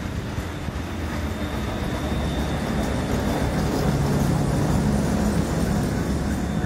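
PCC streetcar running on rails, its rumble growing louder over the first few seconds as it draws near, then holding steady.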